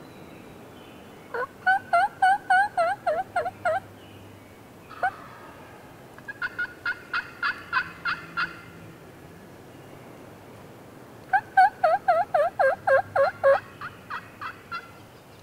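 Turkey yelping: three runs of about ten to fourteen quick, evenly spaced yelps each, the last run trailing off more quietly near the end.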